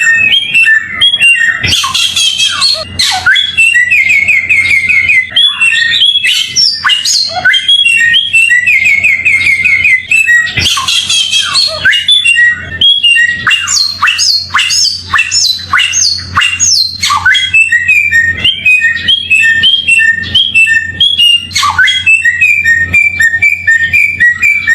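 A samyong songbird singing a loud, continuous song of quick repeated chirps, broken several times by bursts of fast, high, rattling trills, as played in a masteran training recording.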